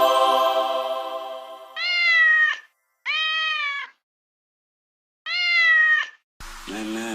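A cat meows three times, each meow a short call that rises and falls in pitch, with pauses between. A held musical chord fades out before the first meow, and a low, droning chant-like sound begins near the end.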